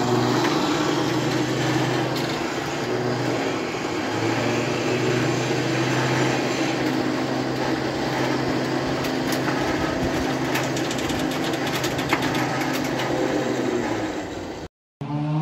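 Flatbed tow truck's engine and winch running with a steady hum as a car is winched along the ramps, with a run of light clicks about ten seconds in. The sound cuts off briefly just before the end.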